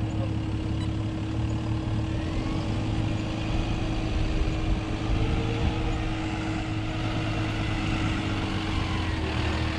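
Yard truck (terminal tractor) engine running steadily with a constant low hum as the truck rolls slowly past and pulls up close.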